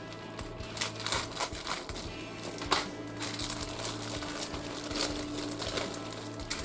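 Plastic bags crinkling and plastic model-kit sprues clicking and rattling as they are handled, in short irregular rustles.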